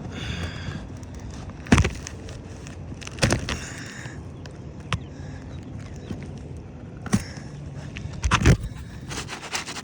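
Sharp knocks and scraping on an asphalt shingle roof as shingles are pried loose to break their seal, with brief squeaks near the start and again about four seconds in. The loudest knocks come near the end.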